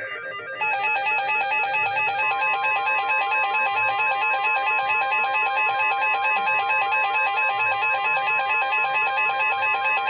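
Emergency weather-radio alert tone: a loud, steady electronic tone starts just under a second in and holds unbroken for about ten seconds, a second, slightly higher tone joining about two seconds in. Background music plays underneath.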